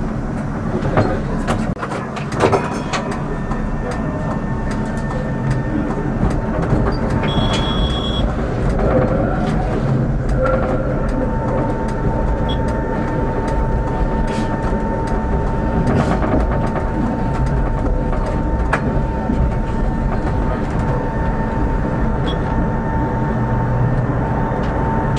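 Tram running along its rails with steady wheel and rail noise, clacking sharply a few times over points and crossings in the first three seconds. From about halfway a steady whine holds under the running noise.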